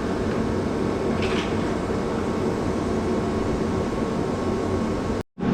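John Deere 7810 tractor's diesel engine idling steadily. The sound cuts out abruptly for a moment near the end.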